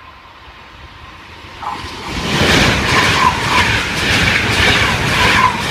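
Trenitalia ETR 485 Frecciargento tilting electric train passing at speed. A rush of wheel and air noise swells in about two seconds in, then stays loud, with a quick, repeating clatter of the wheels on the rails.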